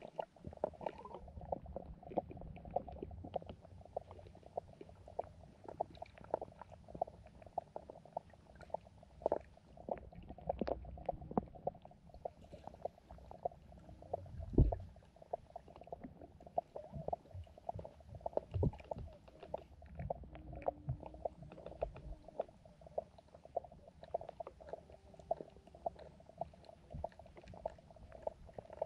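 Underwater sound of a pond where carp and goldfish swim: a steady low rumble with dense, irregular small clicks and ticks, and one loud knock about fourteen seconds in.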